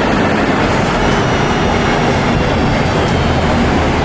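Busy city-street traffic with double-decker buses running past: a steady, loud, unbroken rumble and roar of engines and tyres.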